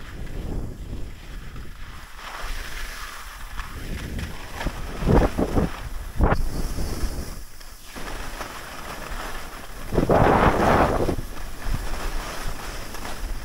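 Skis hissing and scraping over packed groomed snow while skiing downhill, with wind rushing over the microphone. Louder surges of scraping come about five, six and ten seconds in.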